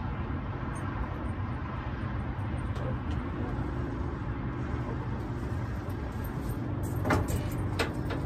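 Steady low motor hum with a rough low rumble beneath it, and two sharp clicks near the end.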